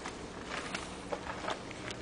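Footsteps on a gritty, debris-strewn concrete floor: people walking, about two steps a second, unevenly spaced.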